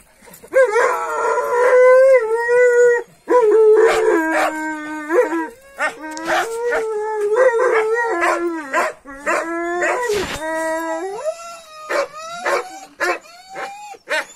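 Kangal shepherd dog howling in a run of long, wavering calls with short breaks between them, the pitch bending up and down. A few sharp knocks come through among the calls.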